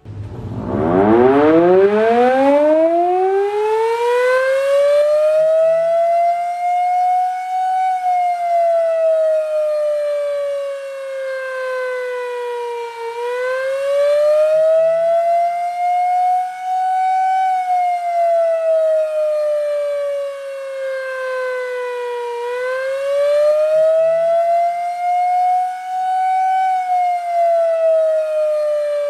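Door warning siren sounding: it winds up from a low pitch to full pitch over about six seconds. It then wails slowly down and up, one rise-and-fall about every nine to ten seconds.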